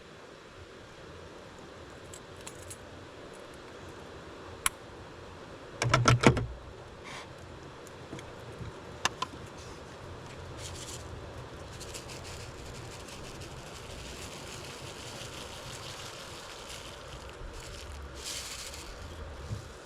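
Scattered clinks and clatters of small hard objects being handled, with a loud burst of rapid rattling about six seconds in and a double click a few seconds later.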